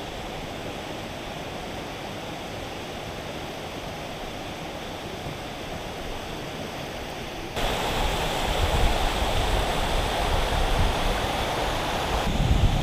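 Mountain brook rushing and cascading over boulders, a steady wash of water noise that gets louder about seven and a half seconds in. Wind buffets the microphone near the end.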